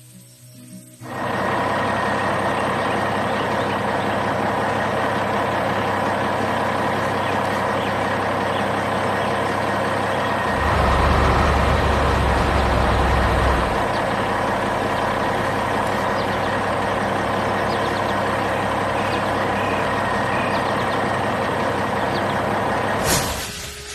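Heavy construction-vehicle engine sound effect running steadily, with a louder low rumble for about three seconds midway. A sharp noise comes near the end before it cuts off.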